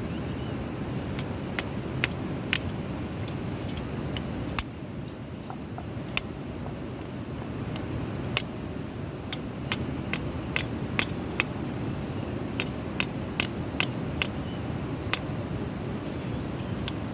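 Irregular sharp clicks and snaps, a few seconds apart to several a second, of hoof-trimming tools cutting and knocking against hoof horn, over a steady low rumbling noise.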